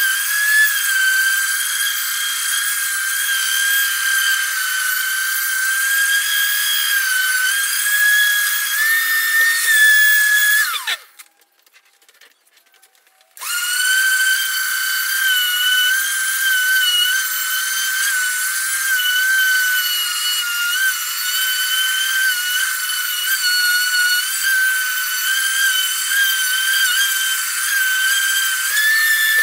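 Electric random orbital sander running against a wooden guitar body with a steady high whine. About eleven seconds in it is switched off and winds down, falls silent for a couple of seconds, then starts up again and runs on.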